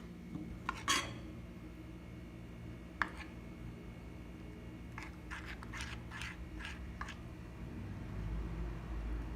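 Scattered light clicks and taps of kitchen items being handled, with a quick run of taps in the middle, over a steady low hum.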